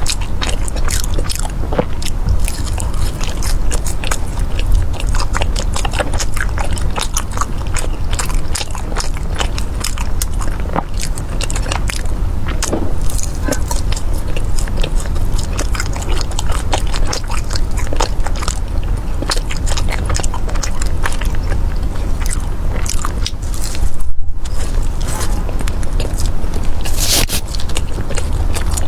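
Close-up eating sounds: biting into and chewing honey-glazed Chinese fried pastries (mi san dao and sugar-ear twists), a steady run of crunchy bites and chewing clicks. The sound drops out for an instant near the end.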